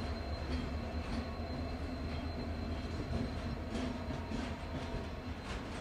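Slow-moving freight train of flat wagons rolling along the track with a steady low rumble, and a few sharp wheel clicks in the second half.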